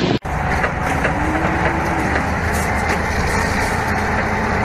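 Heavy truck and wheeled tractor engines running with a steady low rumble. The sound cuts in after a brief gap near the start.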